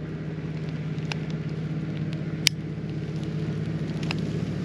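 An engine running steadily at a constant low pitch, with a few sharp clicks over it.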